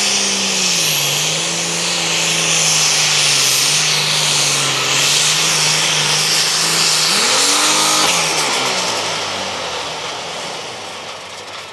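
Allis-Chalmers Super Farm pulling tractor's diesel engine running flat out under load during a pull, with a high whistle over it. About eight seconds in the engine note changes and the sound dies down.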